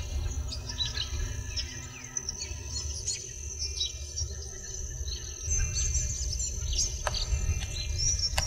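A large flock of swifts calling in flight: many short, overlapping chirps. Under them runs a steady high buzz and a low rumble that strengthens about halfway through.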